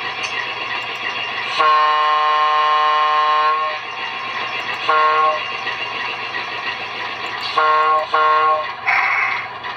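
QSI Titan-A sound decoder in an HO-scale ALCO PA-1 model playing a diesel horn through its small speakers over a steady idling engine sound from an ALCO 244 sound file: one long blast of about two seconds, one short blast, then two short blasts in quick succession. A short hiss follows near the end.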